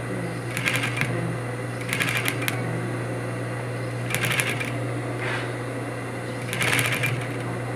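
Industrial sewing machine stitching in four short bursts of rapid needle clatter, each about half a second, over a steady motor hum. The stop-start pace is slow feeding along a zipper.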